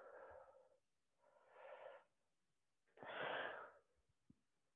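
A woman breathing hard from exertion, in time with a repeated swinging exercise. Three soft breaths come about a second and a half apart.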